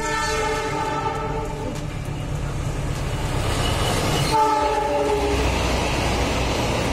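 Diesel locomotive horn sounding a long blast and then a shorter second blast about four seconds in, over the steady rumble of a passenger train running through the station.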